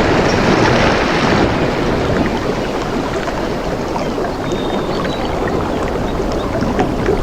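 Steady rush of flowing water, a dense even noise with no clear pulses or breaks.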